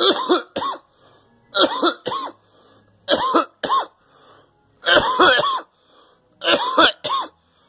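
A person coughing hard in repeated fits. Five bouts come about a second and a half apart, each of two or three harsh, voiced hacks.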